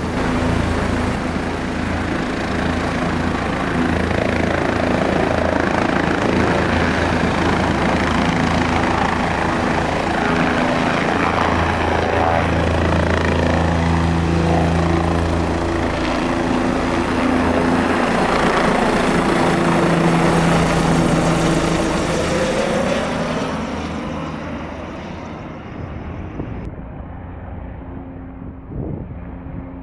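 Bell 407 helicopter, its turboshaft engine and four-blade rotor running loud and close, then growing quieter and duller over the last several seconds as it moves away.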